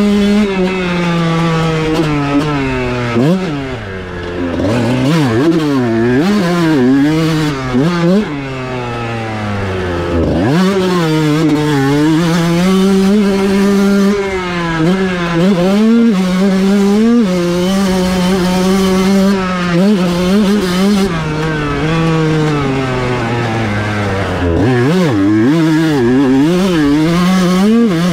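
Kawasaki KX125 single-cylinder two-stroke motocross engine run hard, pitch climbing and dropping as the throttle is rolled off and pinned again, with several quick drops near the start and near the end and a long steady high-revving stretch in the middle.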